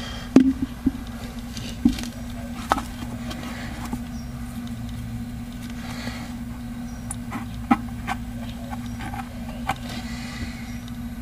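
Steady low hum with a few sharp clicks and taps as the cut-open metal tank is handled, the loudest about half a second in.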